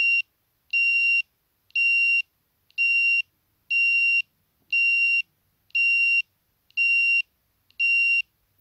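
Reversing alarm of a 3D-printed Wi-Fi-controlled model rubbish truck, beeping a steady high tone about once a second, each beep about half a second long, stopping near the end. It signals that the truck's reverse mode is switched on.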